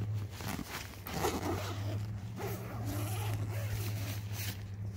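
A nylon tent door's zipper being pulled in several short strokes.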